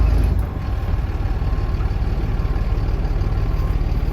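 Heavy diesel engine of a dump truck idling steadily, its low rumble dropping a little about half a second in.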